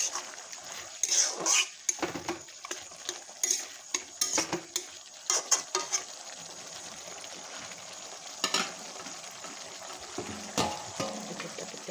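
Metal spatula stirring and scraping pigeon meat in a metal wok over a steady frying sizzle. Irregular scrapes and clinks come thick in the first half and sparser after, with a few louder strikes near the end.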